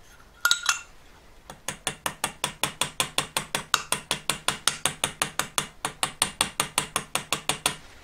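Small hammer tapping the end of a silver hinge pin to rivet it: two knocks, then a long even run of light, rapid taps, about seven a second, stopping near the end. The many light taps slowly spread the pin end into a domed mushroom head that closes the hinge.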